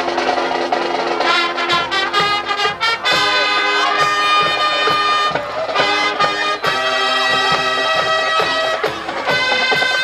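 High school marching band playing, the brass section sounding loud held chords over the percussion.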